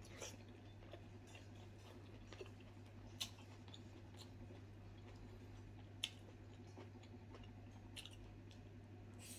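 Quiet sounds of a person chewing food with the mouth, with a handful of small sharp mouth clicks or smacks scattered through, over a steady low hum.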